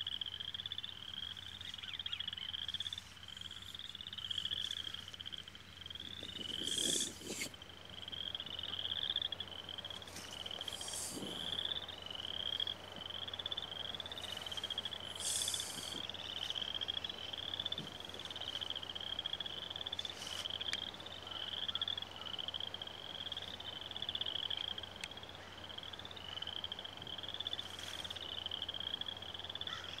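Frogs calling in a steady chorus: short trilled calls, one after another, with a few brief high bird chirps over them.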